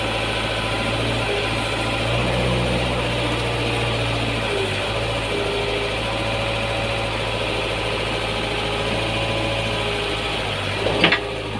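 Komatsu PC50UU mini excavator's diesel engine running steadily, its note shifting a little as the hydraulics move the arm and bucket. A sharp knock sounds near the end.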